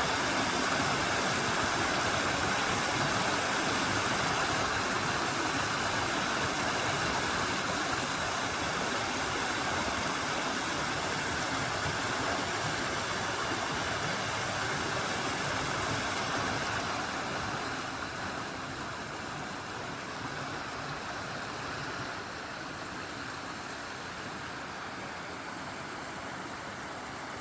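Mountain valley stream running with a steady rushing of water, growing somewhat quieter about two-thirds of the way through.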